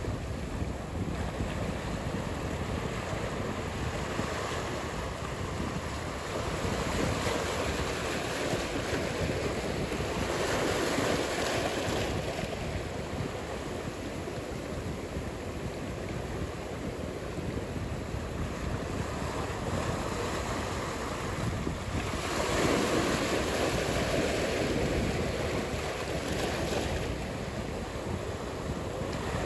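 Ocean surf: a steady wash of breaking waves, swelling louder about seven seconds in and again about twenty-two seconds in.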